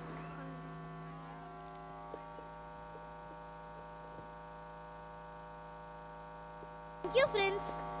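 Steady electrical mains hum with a buzz of overtones, the kind a public-address sound system gives off between items. About seven seconds in, a voice breaks in over it.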